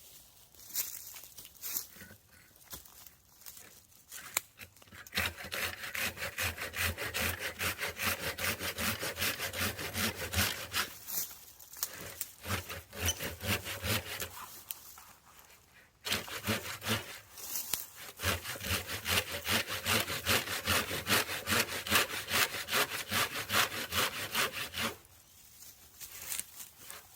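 Hand saw cutting into a fire-charred oak trunk with quick, even back-and-forth strokes, in two long bouts about five seconds and sixteen seconds in, with a short pause between. Softer scraping comes before the first bout.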